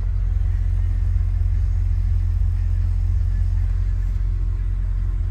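Audi RS6 C7's twin-turbo V8 idling steadily with a deep, even rumble, freshly rebuilt and running without misfire so far.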